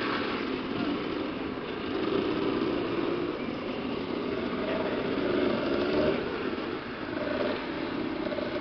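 Several motorcycle engines idling, with the odd blip of the throttle that lifts and drops their pitch.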